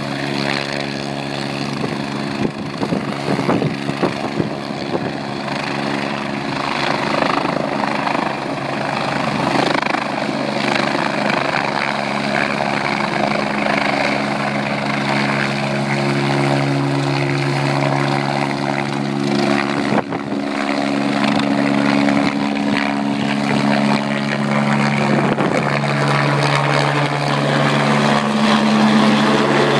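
Helicopter's rotor and turbine engine running steadily with a layered hum of engine tones, lifting away after an aborted landing attempt and later flying low overhead. It grows louder near the end.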